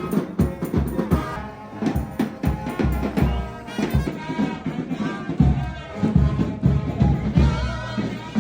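Music with drums: a beat of repeated low hits under a melody.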